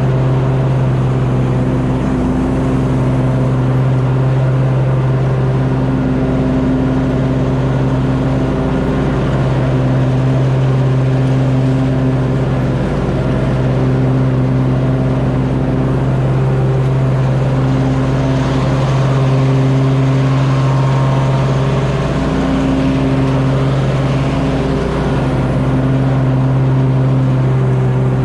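Simplicity Courier zero-turn riding mower running steadily while mowing. Its engine holds an even pitch throughout.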